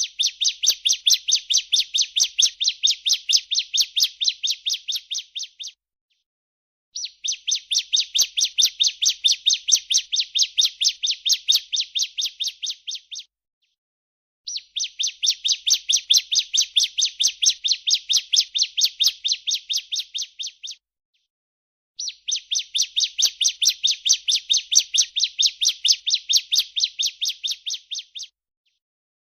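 Female ciblek (prinia) giving its 'breeen' call: bouts of about six seconds of rapid, evenly repeated high buzzy notes, four times, with short pauses between them.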